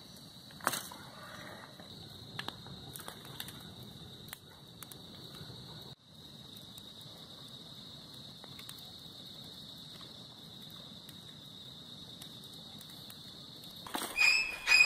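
Wood campfire of branches and twigs crackling faintly, with scattered sharp pops, over a steady high-pitched hiss. Music comes in near the end.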